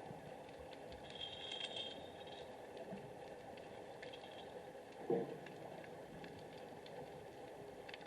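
Underwater ambience picked up by a submerged camera: a faint steady hiss with scattered small crackling clicks, and one dull knock about five seconds in.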